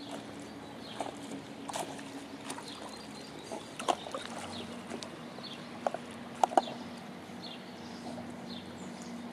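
A dog swimming with a ball in its mouth: scattered small splashes and knocks in the water every second or so, over a steady low hum and faint bird chirps.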